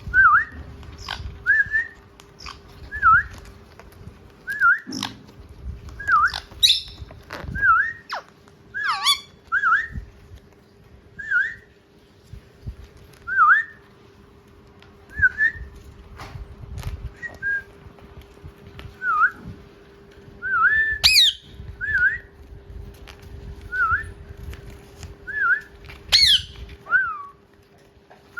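Pet parrots giving short whistled notes over and over, each a quick dip and rise in pitch, with a few louder shrill calls in between. Scattered clicks and rustles and a faint steady hum sit underneath.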